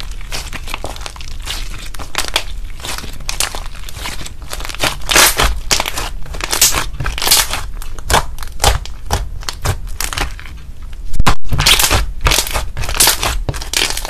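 Thick white slime being pressed, pinched and stretched by fingers, giving an irregular run of sticky clicks and crackles. The sound cuts out for an instant a little past the middle, and the loudest stretch of crackling comes right after.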